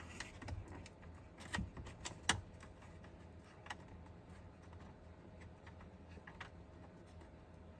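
Faint, scattered clicks and taps of a small screw and the plastic dash as a hand works the instrument-cluster screw into place. The sharpest click comes a little over two seconds in.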